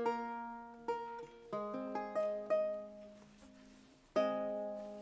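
Solo lute playing a slow Renaissance-style piece: single plucked notes and chords, each ringing and fading away, with a lull before a fresh chord about four seconds in.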